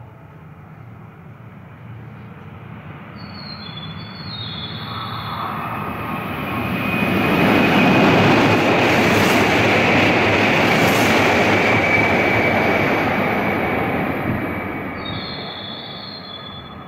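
Kyushu Shinkansen N700-series bullet train passing through the station at speed (about 260 km/h) without stopping. Its noise grows from faint to loud over about seven seconds, stays loud for about five, then fades away.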